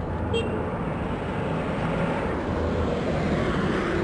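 Steady low rumbling noise with no clear rhythm, with a brief thin high chirp about half a second in.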